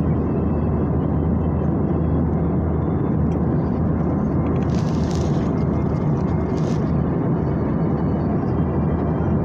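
Steady, even rush of airliner cabin noise in flight: engine and airflow noise heard from inside the cabin. Two short hissy sounds come about halfway through.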